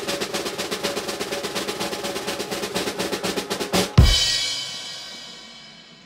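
Snare drum roll of rapid, even strokes, ending about four seconds in on a bass drum hit with a cymbal crash that rings out and fades. This is a ceremonial drum-roll-and-crash fanfare sound effect.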